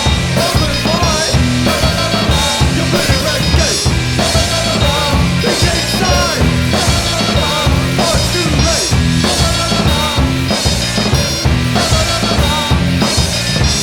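Background music: an upbeat rock track with drums, bass and guitar keeping a steady beat.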